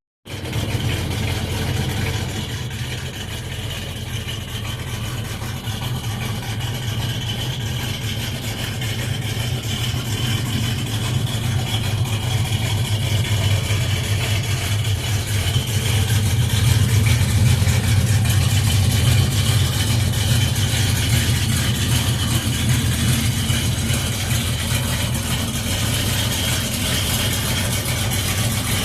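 A 1968 Chevrolet Nova's V8 engine running steadily at idle through its exhaust, swelling slightly louder around the middle.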